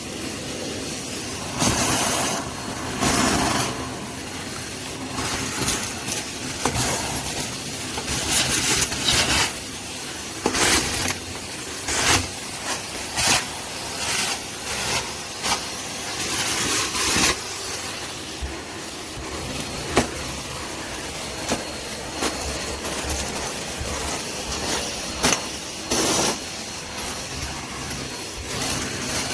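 Henry vacuum cleaner running, with frequent short crackling and clattering noises on top of its steady hiss, as of dust and grit being sucked up the hose.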